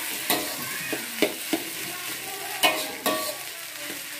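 Metal spatula stirring and scraping fried rice in a metal wok over a steady frying sizzle. About five sharp clanks of the spatula against the pan ring briefly.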